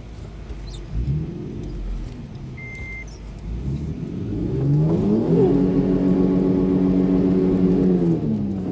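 Car engine revving up about five seconds in, held at high revs for about three seconds, then easing off. A short electronic beep sounds about two and a half seconds in.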